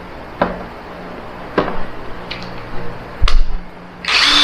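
Plastic clicks and knocks as a battery pack is handled and snapped into a cordless brushless impact wrench, with a heavy clunk about three seconds in. Near the end the wrench is triggered and its motor runs briefly, about half a second, with a whine.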